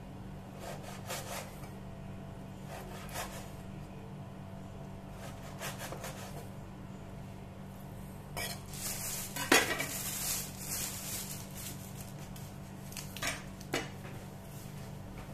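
A metal cleaver knocking now and then on a wooden cutting board as meat is cut and moved about, with a louder clatter of knocks about nine and a half seconds in. A steady low hum runs underneath.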